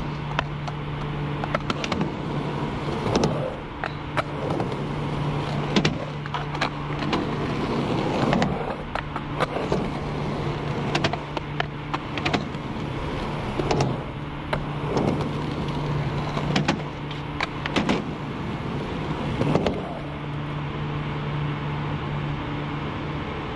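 Skateboard wheels rolling on concrete, with repeated clacks and scrapes as the board hits and slides along a skatepark ledge in frontside noseslide attempts. A steady low hum runs underneath, and the skating sounds stop about twenty seconds in.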